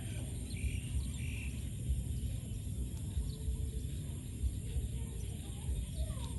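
Faint bird chirps over a steady low rumble.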